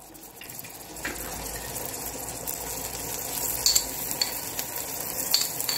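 Raw rice grains sizzling in hot fat in a stainless steel pot, a steady hiss that settles in about a second in, with a few faint light clicks.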